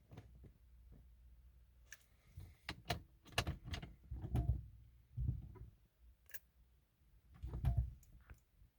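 Scattered clicks and a handful of short low thumps, like handling inside a car, with no starter cranking and no engine running.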